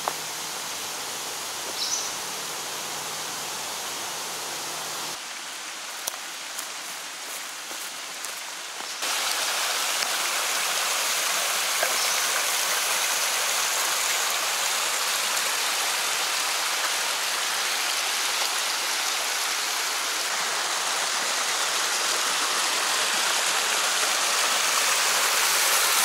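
Rushing water of a small rocky woodland stream pouring over little waterfalls, a steady hiss that gets louder about nine seconds in.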